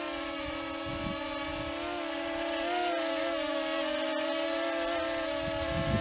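Ryze Tello mini quadcopter hovering close by, its propellers giving a steady multi-toned whine that wavers in pitch about halfway through as the motors correct against strong gusty wind. Wind gusts buffet the microphone near the start and again near the end.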